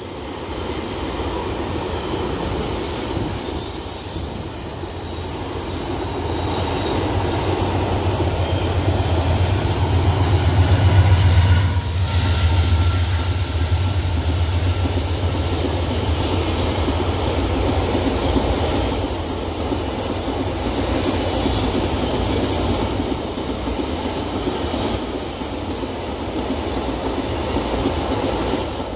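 Fast-running loaded ore train: the wagons rumble and clatter over the rails. The low engine drone of a Vale GE Dash 9 diesel locomotive swells to its loudest about eleven seconds in and drops off quickly after.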